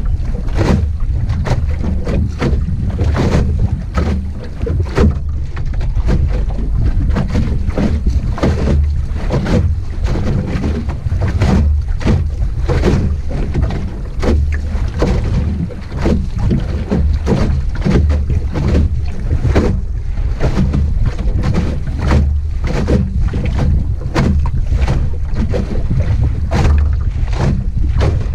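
Small Optimist sailing dinghy under way: constant wind buffeting on the microphone as a heavy low rumble, with frequent irregular short slaps and knocks of water against the hull.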